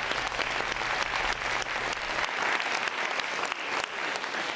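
Hall audience applauding, many hands clapping in a steady, dense patter.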